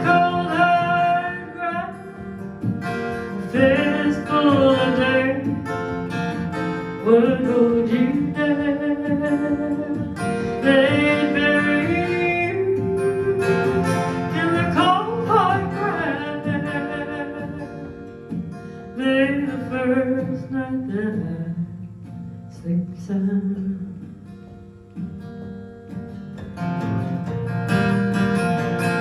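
Live acoustic folk song: strummed acoustic guitar under a sliding, wavering wordless melody line. It thins out and quietens partway through, then the guitar comes back fuller near the end.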